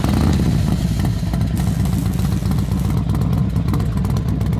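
Motorcycle engine running steadily with a deep, even, low note.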